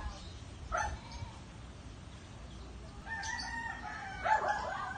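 A rooster crowing: one long call that starts about three seconds in and is loudest near the end, after a short call just under a second in.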